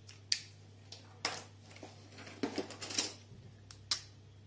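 Sharp clicks and light knocks of marker pens being handled, with a short clattering run of knocks a little past halfway, over a low steady hum.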